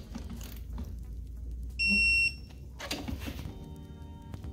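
Digital torque wrench giving one high-pitched beep about half a second long, about two seconds in, the signal that the set torque has been reached on a ring gear bolt. Sharp clicks come near the start and about three seconds in.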